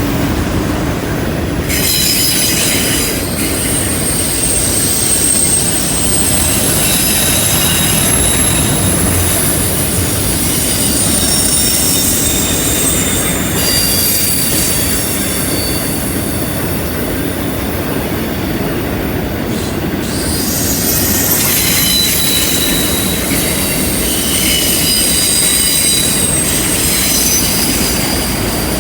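Freight cars of a double-stack and autorack train rolling past on a curve: a steady rumble of wheels on rail, with high flange squeals that come and go and shift in pitch.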